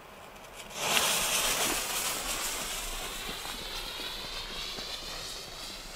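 Two Weco Glittering skyrockets hissing as they ignite after being lit by gas torches. The hiss starts about a second in and slowly fades.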